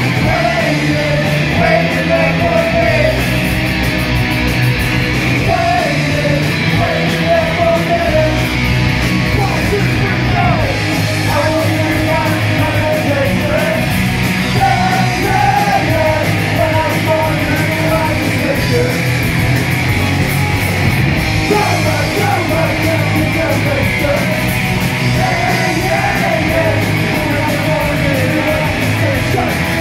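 Live punk rock band playing loud: electric guitars, bass guitar and drums under a yelled lead vocal, continuous throughout.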